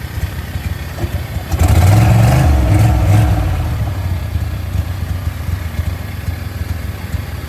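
An engine running, revving up about one and a half seconds in, then easing back over the next couple of seconds to a steady idle.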